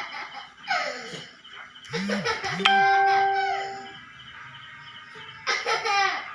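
A small child's high-pitched laughing squeals, with a ding-like ringing tone near the middle that starts suddenly and fades over about a second.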